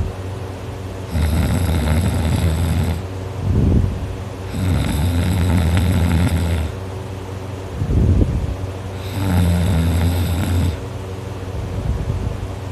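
A fifteen-year-old snoring very loudly: three long snores of about two seconds each, with shorter low sounds between them, over a steady low hum.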